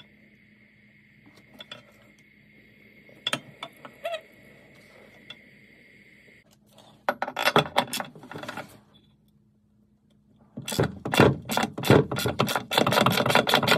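A ratchet spanner clicking rapidly as it works a bath tap's back nut, loudest over the last three seconds, with a shorter burst of metal rattling a few seconds before. Before that there is only a faint steady high tone while a gas blow lamp warms the brass nut.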